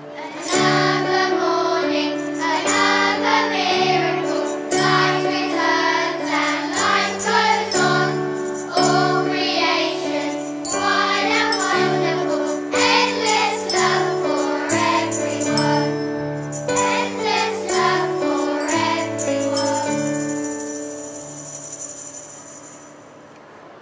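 Children's choir singing with piano and brass accompaniment, tambourine and other small hand percussion shaken along. The song ends on a held chord that fades over the last few seconds with a high shimmer of jingles.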